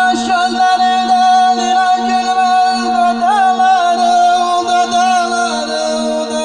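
Amplified live music: a singer holds a long, wavering, ornamented note that bends upward a little after three seconds in, over a steady drone accompaniment.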